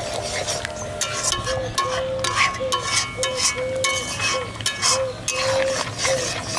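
A metal ladle scraping and stirring thick, simmering dal in an aluminium kadai, in short repeated strokes. A short tone repeats about twice a second behind it.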